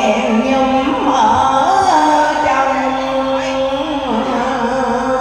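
Music from a Vietnamese song: a melody line of long held notes with slides between them, over steady accompaniment.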